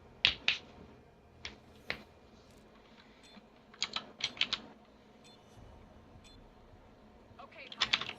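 Mechanical keyboard with clicky Gateron Blue switches being typed on in short, scattered groups of sharp clicks, with pauses between them.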